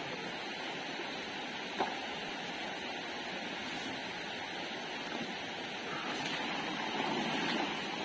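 Shallow rocky stream running steadily over stones, with one sharp knock about two seconds in; the water sound grows a little louder near the end.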